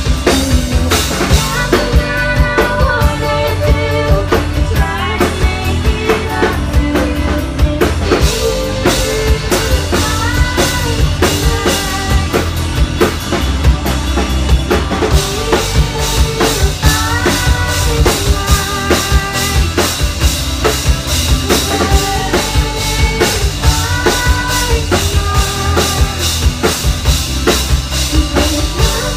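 Live rock band playing: female vocals sung into microphones over a full drum kit, electric bass and guitar, with a steady, driving drum beat.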